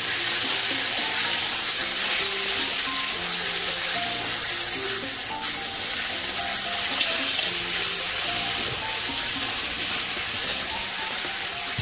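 Onion-tomato masala sizzling steadily in a hot pan while a metal spoon mashes and stirs it, with soft background music of single notes.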